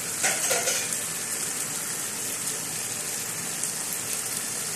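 Yard-long beans stir-frying in an oily frying pan: a steady sizzle, with a brief louder stir of the wooden spoon near the start.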